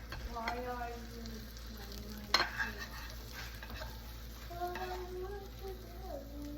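Corn on the cob sizzling in melted butter and Parmesan in a pot as it is stirred and moved around, with one sharp utensil knock against the pot a little over two seconds in.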